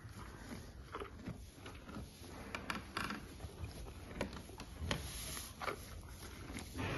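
A cow feeding at a hay rack: dry hay rustling and crackling in irregular bursts as it pushes its muzzle in and tears out mouthfuls, with chewing.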